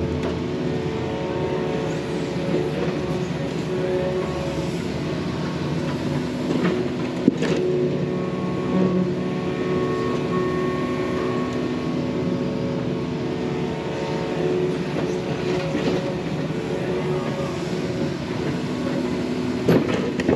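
Yanmar mini excavator's diesel engine running steadily under load while it digs, with a sharp knock about seven seconds in and another near the end.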